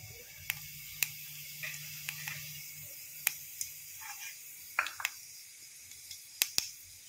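Cumin seeds crackling in hot oil: scattered sharp pops, some in quick pairs, over a faint hiss.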